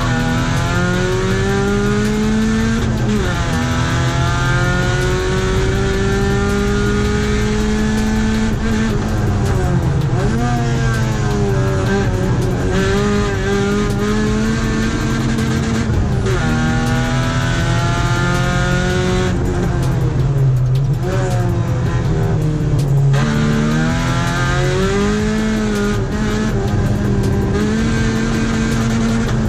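A rally car's engine revving hard under acceleration as it is driven fast through an autoslalom. The pitch climbs for several seconds at a time and drops sharply at each gear change or lift, over and over.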